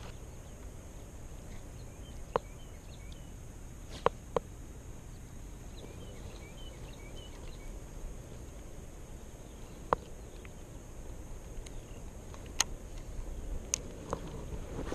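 Outdoor pond-side ambience: a steady high insect drone over a low rumble of wind, with a few faint bird chirps. About six sharp clicks stand out at irregular intervals.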